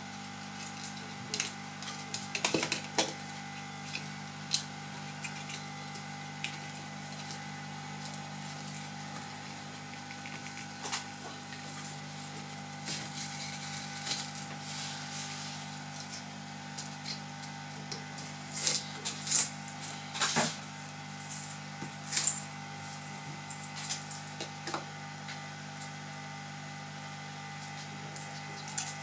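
A plastic pry tool clicking and scraping along a laptop's adhesive-backed plastic screen bezel as it is prised loose, in irregular short clicks that cluster about two to three seconds in and again around eighteen to twenty-two seconds in. A steady electrical hum runs underneath.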